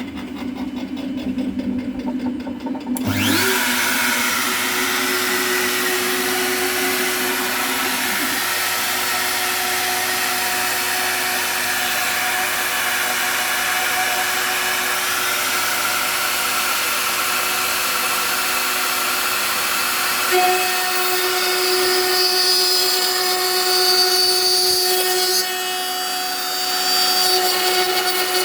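Home-made CNC router spindle spinning up sharply about three seconds in, then running steadily as it mills the top face of a wooden workpiece. A new steady tone joins the whine about twenty seconds in.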